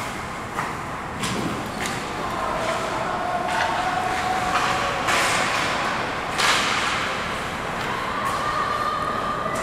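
Ice hockey play: skates scraping the ice and sticks and puck clacking, with a string of sharp knocks, the loudest about six and a half seconds in. A faint drawn-out wavering tone sounds behind it.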